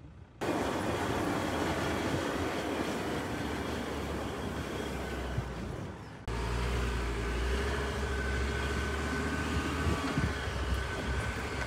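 Ford Everest four-wheel drive running along a soft sand track: a steady engine and road noise. About six seconds in the sound cuts abruptly to a heavier low rumble.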